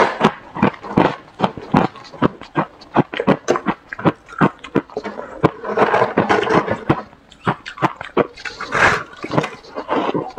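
Powdery freezer frost being bitten and chewed close to the microphone: an irregular run of sharp crunches, a few a second, with louder, longer crunching bites at the start, around six seconds in and about nine seconds in.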